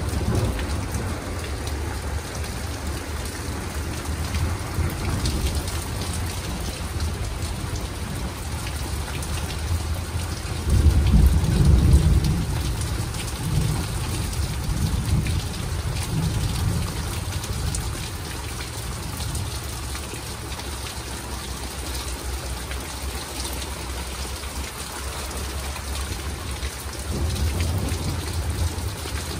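Steady rain with rolling thunder from nearby lightning strikes: a deep rumble swells about a third of the way in and rolls on for several seconds before fading, and another rumble comes near the end.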